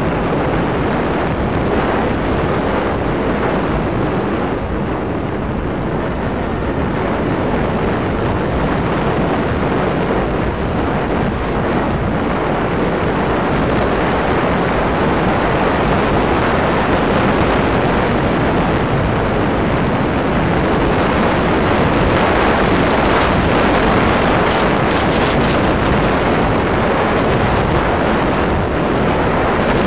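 Steady rushing wind noise on the onboard microphone of an electric AXN FPV model plane in flight, with the plane's motor and propeller noise buried in it; it grows a little louder in the second half as the plane speeds up.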